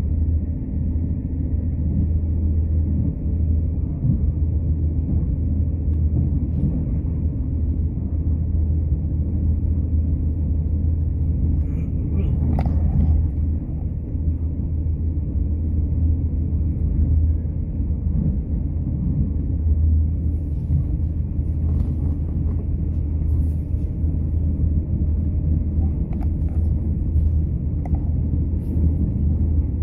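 Irish Rail diesel train running at a steady pace: an even, deep rumble.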